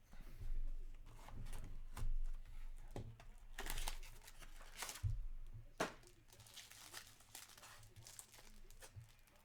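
Trading card packs being torn open, wrappers crinkling, with irregular rustles and clicks.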